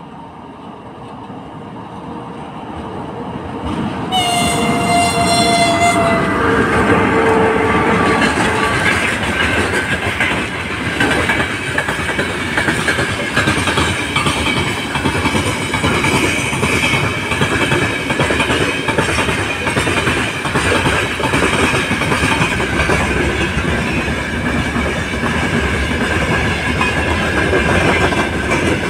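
A 2ES6 'Sinara' electric locomotive hauling a freight train draws near, growing louder, and sounds one horn blast about four seconds in, lasting a couple of seconds. The long string of freight wagons then rolls past with a steady rumble and the clickety-clack of wheels over rail joints.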